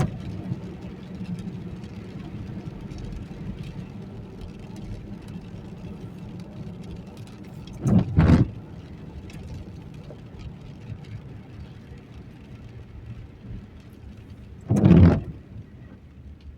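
Steady car road and engine noise heard from inside the cabin in the rain, broken twice by loud sweeps of the windshield wipers, about seven seconds apart: a double one about eight seconds in and another near fifteen seconds. The wipers are making a racket.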